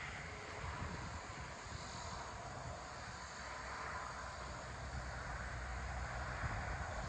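Steady open-air ambience of farm fields: a low, uneven rumble under an even hiss, with no distinct events.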